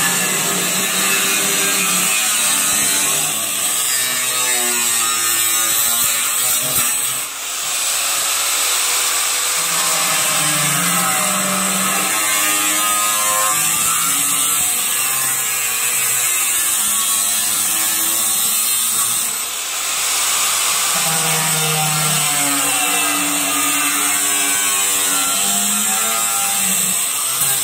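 A 4.5-inch angle grinder cutting an opening through a cabinet wall: a loud, continuous grinding with a high hiss, its pitch wavering as the cut goes on, and two brief dips, about seven and nineteen seconds in.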